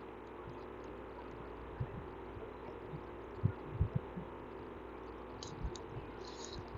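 Quiet room tone: a steady faint microphone hum and hiss, with a few soft faint thumps about two to four seconds in and brief faint hissy sounds near the end.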